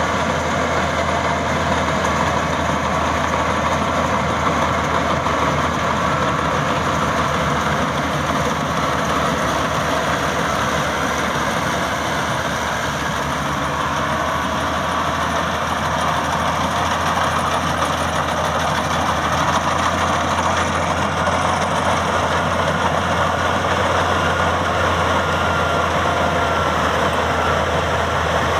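Engine of a Top Maxxi Bimo 102 combine harvester running steadily, a constant low hum and drone with no change in speed.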